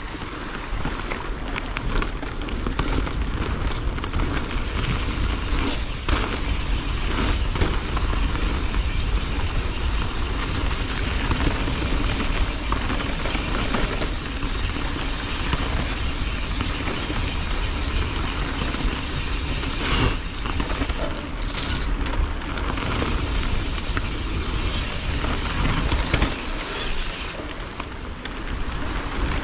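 Canyon Strive enduro mountain bike riding fast down a dirt singletrack: wind rumbling steadily on the camera's microphone over the sound of tyres rolling on dirt, with scattered knocks and rattles from the bike over bumps.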